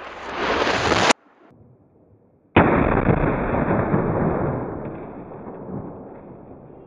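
A Tannerite exploding target detonating: a sudden loud blast about two and a half seconds in that dies away slowly over several seconds. Before it, a rising rush of noise cuts off abruptly about a second in, followed by a short near-quiet gap.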